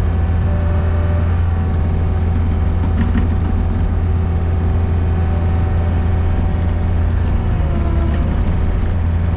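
Gehl RT65 tracked skid steer's diesel engine running steadily under heavy load while it climbs a snow-covered hill with its tracks slipping. About eight seconds in, the engine pitch dips briefly as it bogs down, then recovers.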